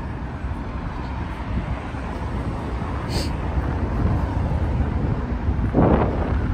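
Steady city street noise of traffic on a multi-lane road, with wind rumbling on the microphone and growing slightly louder toward the end.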